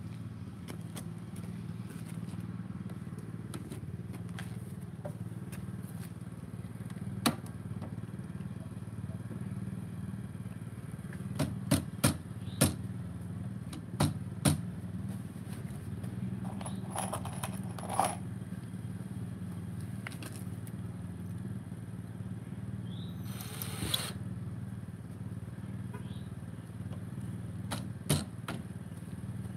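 Lumber and bar clamps being handled while a wooden cart frame is assembled: scattered sharp knocks and clicks, a tight cluster of them about 12 seconds in, over a steady low hum.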